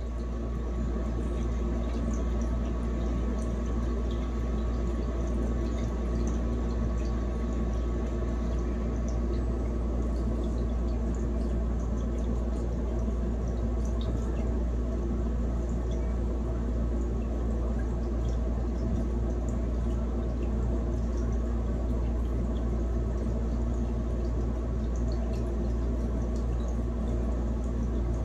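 A steady, unchanging electrical hum: a low drone with a buzz of overtones above it, and no music or voice.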